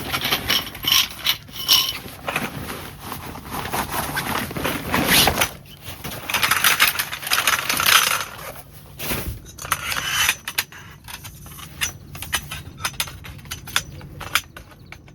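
Irregular handling noises: metallic clinks and rattles mixed with scraping and rustling, busiest in the first half and thinning to scattered clicks near the end.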